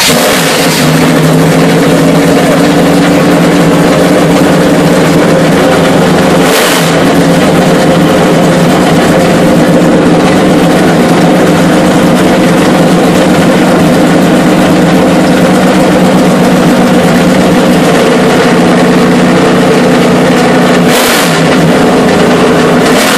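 NASCAR Cup race car's pushrod V8 idling loudly and steadily just after a cold start. The note wavers briefly twice, about seven seconds in and again near the end.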